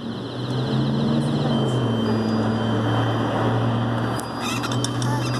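A motor vehicle engine running with a steady low hum. Faint high electronic alarm tones come and go in the background.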